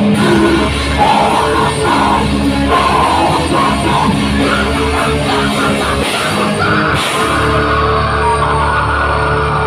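Live heavy metal band playing: distorted electric guitar, bass guitar and drum kit, with a vocalist singing into a microphone. From about seven and a half seconds in, the low end settles into a steady held note.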